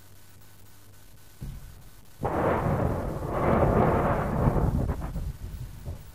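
Toyota Hilux rolling over at about 80 km/h, heard from inside the cab. A thump comes about a second and a half in, then from about two seconds a loud, continuous crash as the body strikes the ground and the unprotected cab crushes in, with windows shattering. It tails off into scattered separate impacts near the end.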